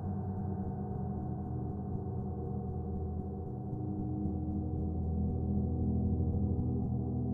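Earth and Moon planet gongs ringing in a sustained wash of deep, overlapping tones, with no distinct new strike. The sound swells slightly louder over the last couple of seconds.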